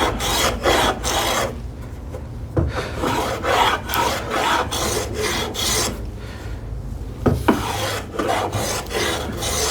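Hand plane taking a series of light strokes along the sharp edges of a wooden panel, breaking the arrises to round them slightly: a repeated scraping shave of the blade on wood with short pauses between strokes.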